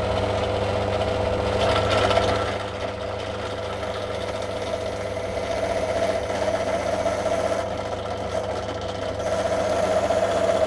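Benchtop drill press motor running with a steady hum while a 7 mm bit drills through a walnut pen blank. The level swells and dips a few times as the bit cuts.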